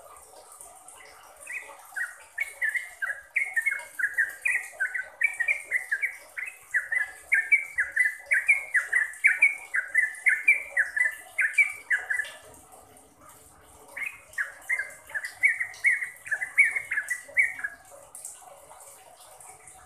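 Yellow-vented bulbul singing: a long run of quick, bubbly sliding notes, about three a second, then a short pause and a second, shorter run near the end, over a steady high hiss.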